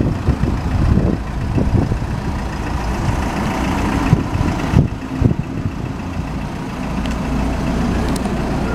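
Volkswagen Transporter van's 2.0 TDI diesel engine idling steadily, with an uneven low rumble over it.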